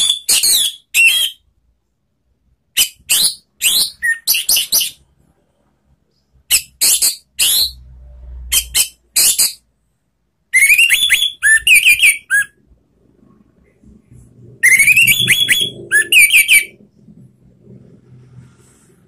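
Orange-headed thrush (anis merah) singing in rapid, high-pitched twittering phrases, in five bursts of one to three seconds each with short pauses between.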